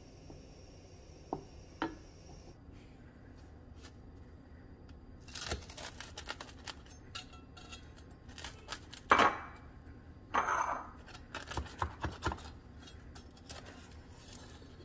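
Chef's knife sawing through the crisp, crusty top of a baked focaccia on a wooden cutting board: uneven crackling and crunching strokes that start about five seconds in and are loudest around nine seconds in. A couple of faint taps near the start.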